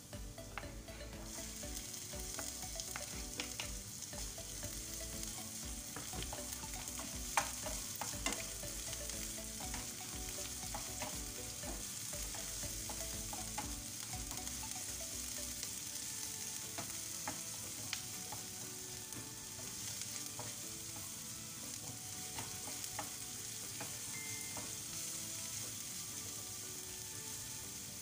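Chopped onions and minced garlic sizzling in hot oil in a nonstick frying pan. The sizzle grows louder about a second in as the onions go in, and a wooden spoon stirring them makes scattered clicks against the pan.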